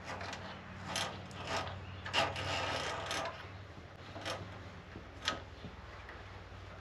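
Plastic pass-through mounting ties for an electric radiator fan being pulled through their locking clips, a series of short scratchy ratcheting rasps, with a steady low hum underneath.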